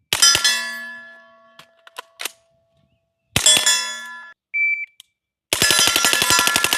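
Suppressed 9mm AR carbine firing, each shot followed by a long metallic ring like steel targets being hit. There are a couple of shots at the start, a single shot about three seconds later, and a rapid string of about a dozen shots near the end.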